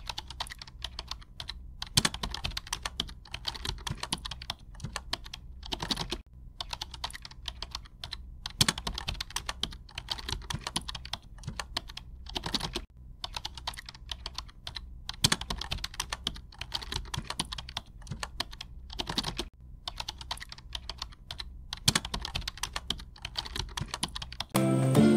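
Writing sound effect for a hand-drawn text animation: runs of rapid, scratchy clicks, like pen strokes or keystrokes, broken by brief pauses every few seconds between lines of text.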